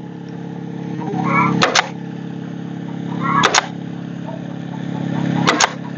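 An air compressor runs steadily while a pneumatic staple gun fires three times, about two seconds apart, driving staples into the run's wire.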